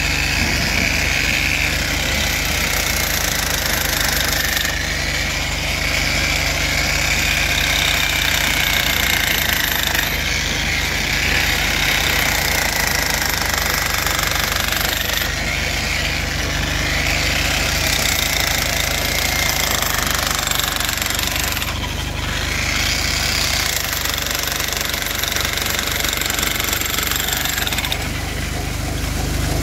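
A motor-driven stone-cutting rig cutting into rock, with a loud, continuous grinding whine that wavers up and down in pitch over a steady engine drone.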